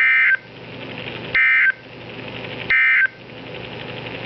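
Emergency Alert System SAME digital data burst sent three times: the end-of-message code closing a NOAA Weather Radio alert. Each burst is a harsh, buzzy warble about a third of a second long, repeating about every 1.35 seconds over radio hiss.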